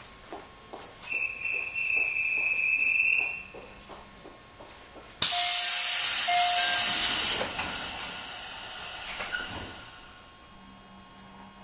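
Inside a JR Central 211 series electric train car: a steady high beep sounds for about two seconds, then about five seconds in a loud hiss of compressed air bursts out for two seconds and tails off as the pneumatic doors close. A low steady hum starts near the end.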